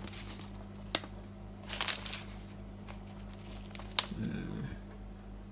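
Paper instruction manual being handled: crinkling and rustling, with two sharp taps, over the steady low hum of a running Samsung Eco Bubble washing machine.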